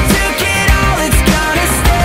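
Background pop-rock music with drums and guitars and a steady beat.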